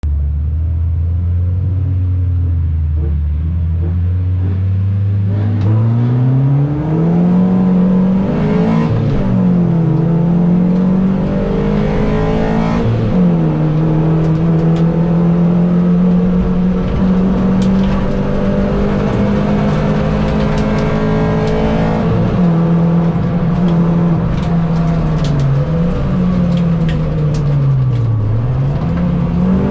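Mini Cup race car engine idling low and steady, then revving hard from about six seconds in as the car pulls away. The note climbs and drops back at each gear change, holds steady at speed, and dips briefly twice near the end when the driver lifts off before accelerating again.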